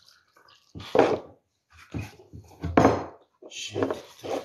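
Dishes and containers knocked and set down on a table, a few separate clatters, the loudest about a second in and near three seconds.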